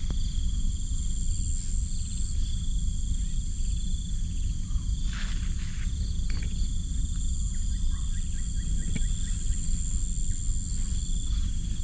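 Steady insect chorus, trilling without a break at two high pitches, over a steady low rumble. A couple of brief rustles come about five and six and a half seconds in.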